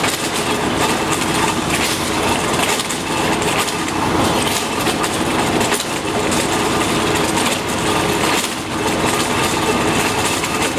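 Tractor-mounted trencher cutting through road asphalt: a continuous grinding, rattling clatter over the tractor's running diesel engine.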